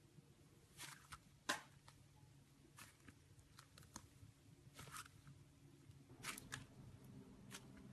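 Slime being squeezed and poked: faint sticky clicks and short crackles at irregular intervals, the sharpest about a second and a half in.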